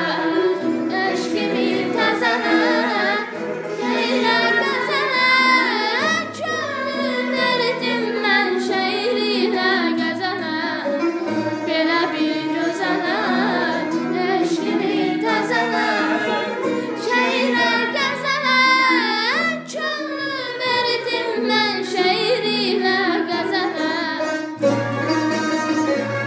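Azerbaijani təsnif music in the Dashti mode: a heavily ornamented melody with rapid trills and sliding turns, played over steady low held accompaniment notes.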